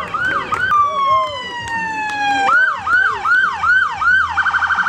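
Electronic emergency-vehicle siren cycling through its tones: rising and falling sweeps, a long falling tone, then quicker repeated sweeps, ending in a fast warble.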